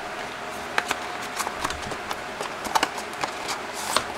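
Hands handling unboxed packaging and accessories: scattered light clicks and taps, with a short rustle near the end, over a faint steady hum.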